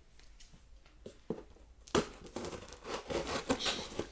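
A cardboard shipping box being opened by hand: scattered clicks and scraping, a sharp snap about two seconds in, then steady crinkling and rustling of the flaps and packing.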